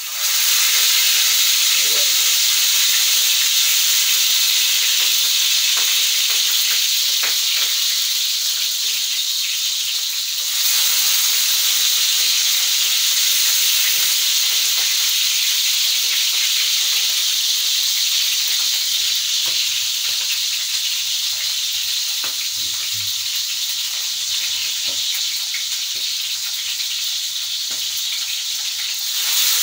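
Chicken drumsticks searing in hot oil in a pan: a loud, steady sizzle with occasional small ticks.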